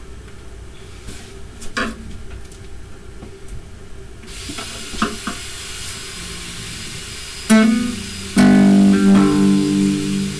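Acoustic guitar: a few soft knocks at first, then a chord plucked about seven and a half seconds in, and loud strummed chords ringing from about eight seconds on.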